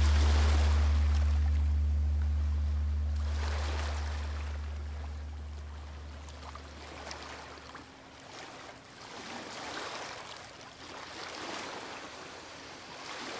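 The score's last low sustained note fading away over the first half, under a rushing, water-like noise that swells and ebbs every second or two, like waves washing in.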